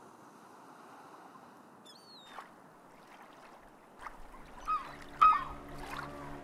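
Gulls calling over a soft, steady wash of water. One call comes about two seconds in, and a louder cluster follows in the second half, the loudest a little past five seconds. A steady low tone with overtones sets in near the end.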